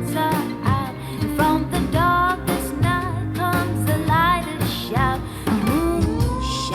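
A song with a singing voice, guitar and bass, played back through a pair of desktop speakers and recorded by a microphone in the room.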